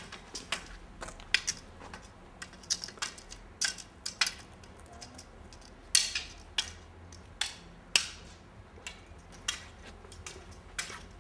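Irregular sharp clicks and taps, two or three a second, over a quiet low hum; a few, about six and eight seconds in, are louder and trail off briefly.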